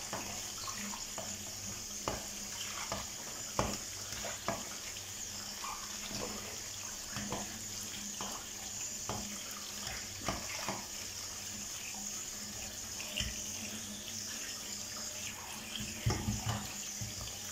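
Tap water running steadily into a stainless-steel colander in a steel sink while hands rub and swish fumbwa leaves in it, with irregular splashes and light knocks against the metal and a few louder ones near the end.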